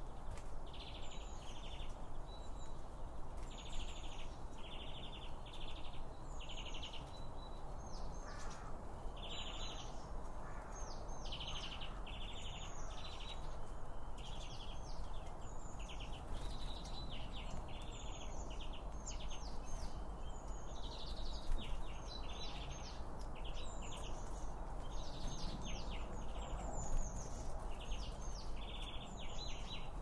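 Small garden birds, blue tits among them, giving short high chirps and calls one after another without pause, over a steady low background rumble.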